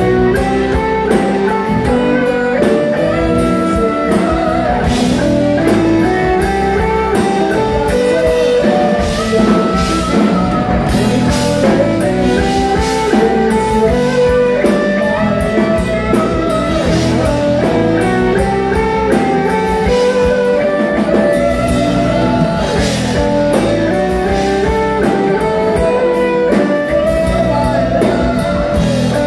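Live rock band playing an instrumental passage: electric guitar carrying the melody over strummed acoustic guitar, bass guitar and drum kit, in a steady rhythm.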